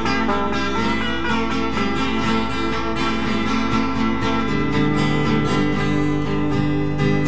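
Guitar music: a plucked acoustic-sounding guitar playing a quick run of notes over held bass notes.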